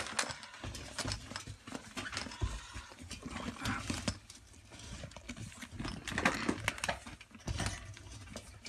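Plastic-coated nylon ducting rustling and crinkling while it is worked over a ventilator's metal housing and its cord is tied, with scattered clicks, knocks and a few dull thumps from the handling.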